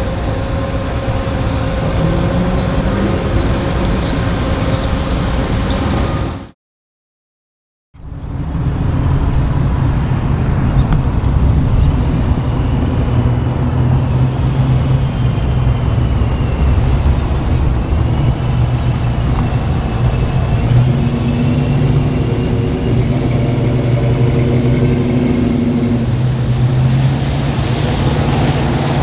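Engines of classic cars and hot rods running as they drive past at low speed, their pitch rising and falling. About six and a half seconds in, the sound drops out for a second and a half, then the engine noise resumes.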